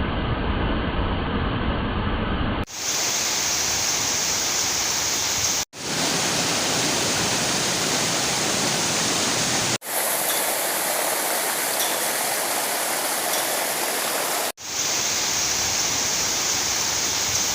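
Rushing water, a steady even noise, in several joined pieces with short breaks about 3, 6, 10 and 15 seconds in. The first piece is duller, with more low rumble and no high hiss.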